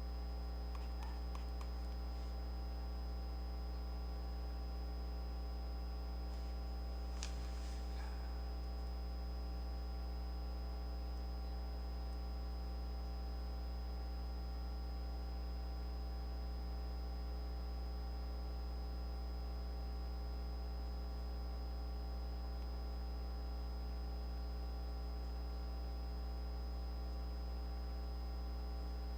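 Steady electrical mains hum with a ladder of overtones, and one faint click about seven seconds in.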